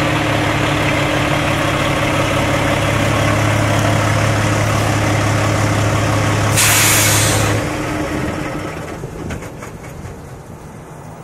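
Kenworth T660 truck's diesel engine idling steadily. About six and a half seconds in, a loud hiss of air lasts about a second; then the idle stops and the sound dies away.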